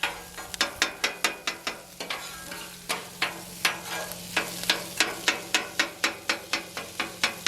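Metal spatulas chopping hot dogs on a Blackstone steel flat-top griddle: quick repeated metal-on-metal clacks, about four or five a second, over a faint sizzle of frying meat.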